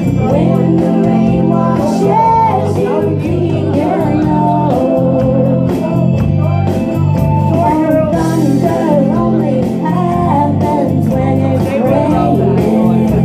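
A woman singing into a microphone over amplified backing music with a strong bass line, played loud through a PA system.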